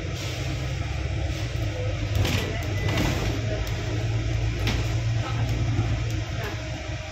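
Double-decker bus driving in traffic, heard from inside the upper deck: a steady low engine rumble with road noise, and a few short knocks or rattles in the cabin a couple of seconds in and again later.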